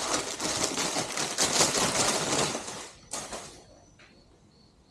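Rapid clicking and rustling handling noise as the swing arm extension kit parts are picked up and moved, stopping about two and a half seconds in, with one short burst of the same just after, then quiet.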